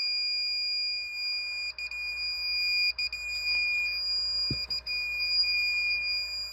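A car's electronic warning buzzer sounding one steady, unbroken high tone, with a brief low thump about four and a half seconds in.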